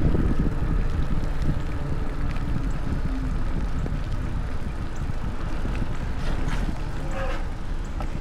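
Steady wind rushing over the camera's microphone while riding a mountain bike, a low rumble with no pauses.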